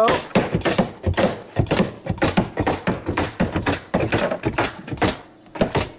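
Claw hammer tapping nail heads flush into plywood roof sheathing in a quick, even run of sharp knocks, about five a second, with a short pause near the end. The nails were left standing proud because the nail gun's compressor pressure was set too low.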